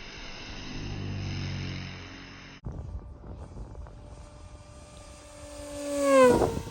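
Radio-controlled model Macchi M.C.72 seaplane flying past: its propeller whine, steady at first, breaks off abruptly a little over two seconds in, then swells to a loud peak near the end and drops in pitch as the plane passes. Wind rumbles on the microphone throughout.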